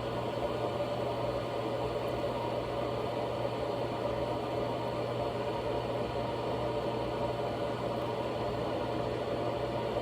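Hamilton Beach 1500-watt stainless steel electric kettle heating water: a loud, steady rushing noise with a constant low hum.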